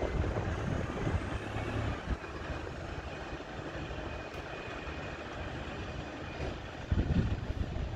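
A heavy road vehicle running steadily, with a faint high whine. From about seven seconds in, gusts of wind buffet the microphone.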